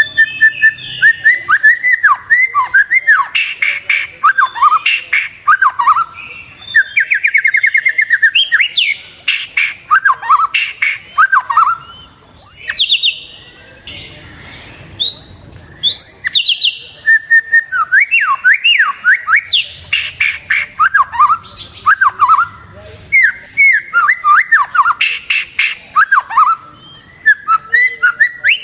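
White-rumped shama (murai batu) singing a long, rapidly varied song: quick rising and falling whistled notes, trills and sharp clicks, in bursts with short pauses.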